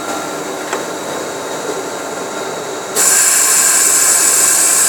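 HFT-1300 semi-automatic roll cutting machine running with a steady mechanical noise; about three seconds in, a much louder, steady high-pitched hiss sets in suddenly and holds.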